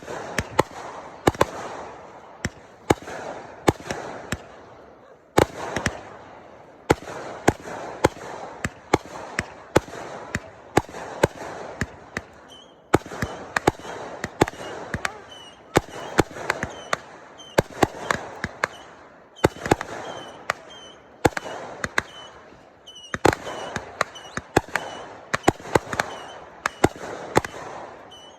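Fireworks going off in rapid volleys: many sharp bangs in quick clusters over a continuous crackle, with brief lulls now and then.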